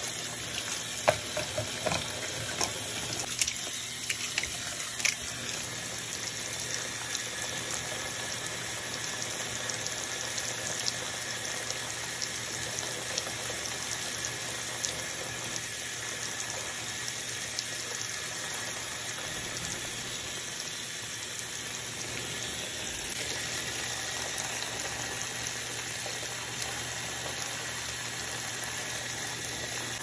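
Water jetting into a top-loading washing machine's tub onto foamy suds: a steady hiss of running water with fizzing foam, and a few sharp ticks in the first few seconds.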